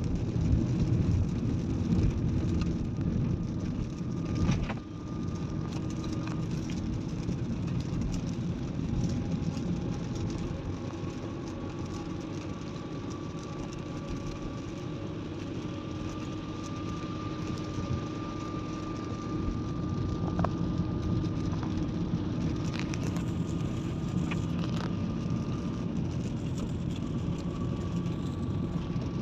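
Steady road noise inside a moving car on a rain-wet road: engine and tyre noise, with a few brief clicks.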